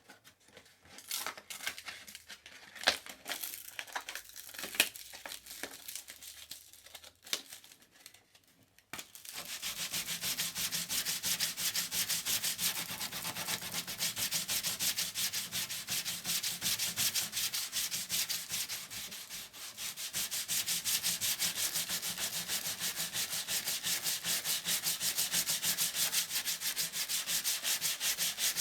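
Sandpaper being rubbed on folded paper and a small piece. It begins with scattered rustles and sharp ticks as the paper is handled, then about nine seconds in settles into fast, even back-and-forth sanding strokes with a dry hiss. The strokes ease briefly about two-thirds of the way through.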